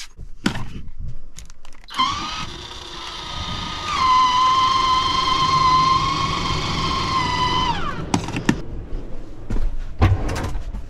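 MaxxAir roof vent fan's electric motor whining as it spins up, steps up to a higher speed, runs steadily for a few seconds, then winds down. A few sharp knocks follow near the end.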